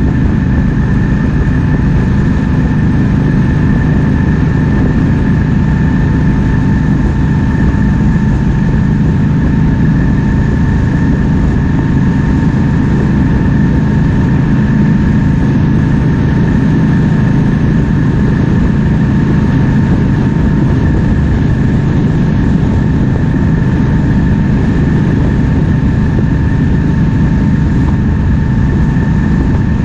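Triumph Speed Twin 1200's 1200 cc parallel-twin engine running at a steady cruise under way, mixed with wind rushing over the microphone. The engine note and the wind hold constant throughout, with a faint steady high whine running underneath.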